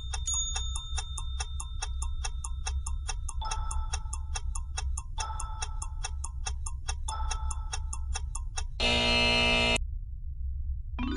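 Quiz countdown sound effect: a clock ticks quickly and evenly over soft held musical tones, with a soft note sounding three times. About nine seconds in, a loud buzzer-like tone sounds for about a second and cuts off, marking time up. A chime begins right at the end.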